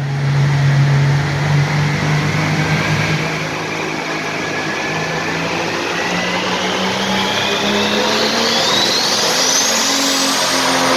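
Hot Farm class turbocharged diesel pulling tractor running hard down the track under load. A high whine rises steadily in pitch above the engine.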